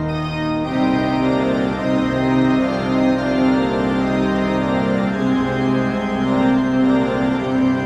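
Background organ music: held organ chords that change every second or so.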